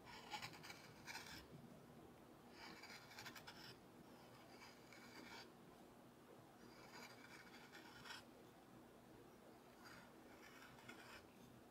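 Carving gouge paring curls from a walnut board by hand: about five faint scraping cuts, each lasting around a second, with short pauses between them.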